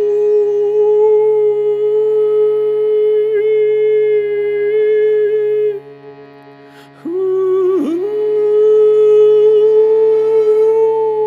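Overtone singing over a steady shruti box drone: a held, hummed tone with whistle-like overtones that shift in pitch above it. About six seconds in the voice breaks off, leaving the drone alone, then returns with a sliding swoop and holds its note again.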